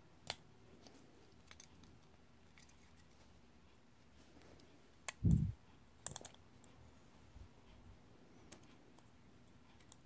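Small sharp plastic clicks as the clips of a 2006–2010 Honda Civic master power window switch are worked off its circuit board with a small screwdriver, a few scattered clicks with a short cluster about six seconds in. A dull low thump about five seconds in is the loudest sound.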